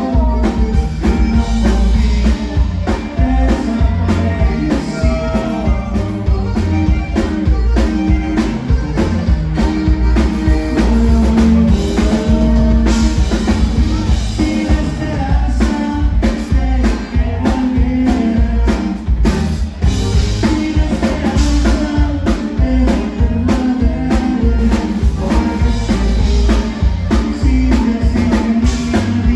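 Live conjunto music: a button accordion carrying the melody over a bajo sexto, electric bass and drum kit, with a man singing.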